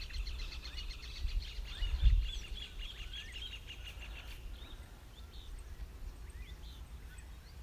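Birds calling: a fast run of repeated high chirps, about five a second, fades out a little after four seconds in, followed by scattered short chirps. Underneath, a steady low rumble of wind on the microphone, with one louder gust about two seconds in.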